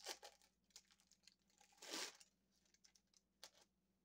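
Faint crinkling and tearing of a thin plastic wrapper as a slice of American cheese is unwrapped: a few short rustles, the loudest about two seconds in.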